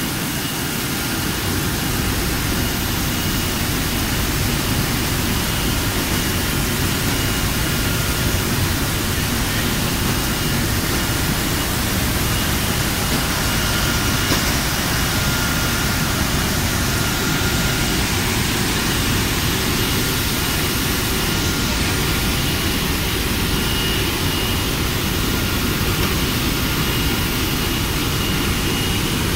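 Bottling-line machinery running: a steady, loud mechanical noise with a faint high whine that comes and goes.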